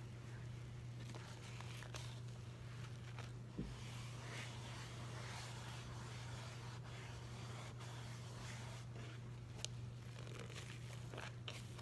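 Wet squishing and crackling of a scouring sponge squeezed and scrubbed by hand in a thick paste of Comet cleanser and dish-soap suds, with scattered small crackles and one soft knock about three and a half seconds in, over a steady low hum.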